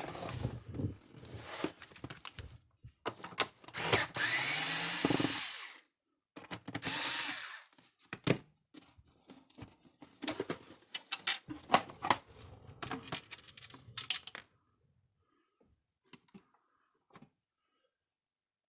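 Small power screwdriver running in two bursts about four and about seven seconds in, its whine rising as it spins up, backing screws out of the energizer's case; between and around them, clicks and knocks of tools and parts being handled, dying away for the last few seconds.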